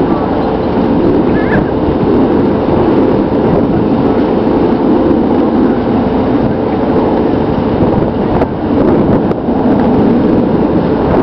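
Sailboat's engine running steadily under way, mixed with wind rushing over the microphone.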